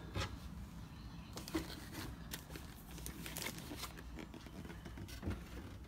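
Faint, scattered taps and light rustles as a cardboard subscription box and its packaged contents are handled and moved across a wooden table.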